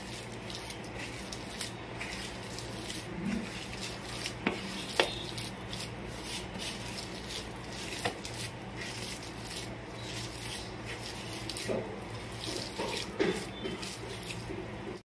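Hand kneading a soft, moist potato and crushed-noodle mixture on a ceramic plate: soft squishing and rubbing with a few light clicks. A steady low hum runs underneath.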